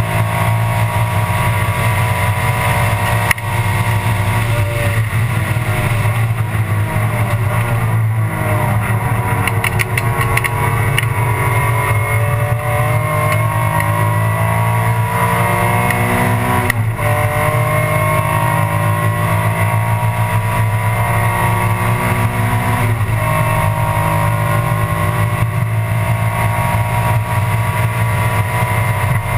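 Alfa Romeo 156 GTA race car's V6 engine heard from inside the cockpit, running hard at high revs. Its pitch falls for a few seconds about five seconds in as the car slows and shifts down, then climbs again through the gears, with sharp breaks at the upshifts.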